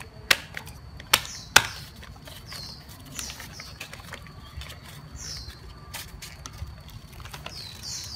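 A sheet of paper being folded and creased by hand into a paper airplane: rustling with a few sharp taps as the folds are pressed down. Short high chirps sound every couple of seconds in the background.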